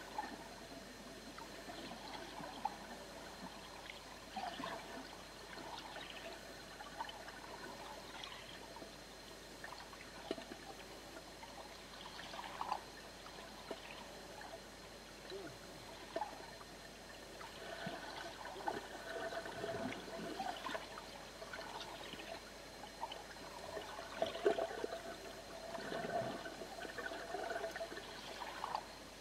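Underwater water sound: a steady trickling and gurgling wash with many short, irregular bubbly blips scattered through it.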